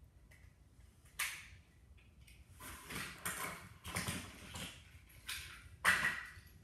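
Irregular knocks, clatters and rustling, with a sharp clack about a second in and the loudest knock near the end.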